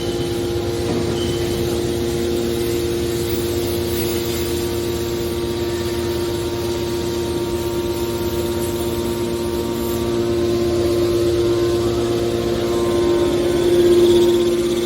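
Hydraulic scrap-metal baler running: its motor and pump give a steady hum with a constant whine over a low rumble. The sound swells about two-thirds of the way in and is loudest near the end.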